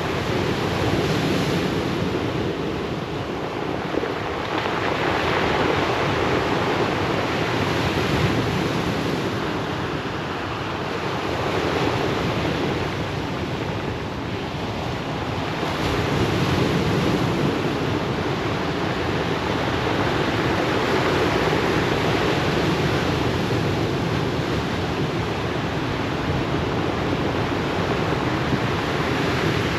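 Ocean surf washing onto a pebble beach: a continuous wash of waves that swells and eases slowly, softer for a moment twice in the first half.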